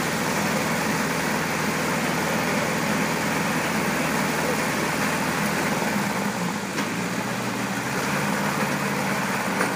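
Mini round hay baler running with a steady engine-driven mechanical drone; the deepest part of the sound drops away about six seconds in.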